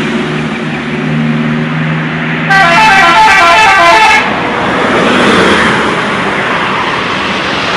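A bus's multi-tone 'telolet' air horn plays a quick run of stepping notes for nearly two seconds, about two and a half seconds in. Around it the bus engine hums steadily over road noise.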